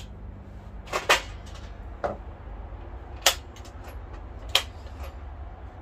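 Five or so short, sharp clicks and knocks, irregularly spaced a second or so apart, over a steady low hum.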